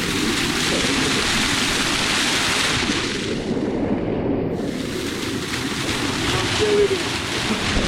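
Rushing, falling water of a waterfall: a steady low rumble with a loud hiss over it that swells twice, dropping away briefly around the middle.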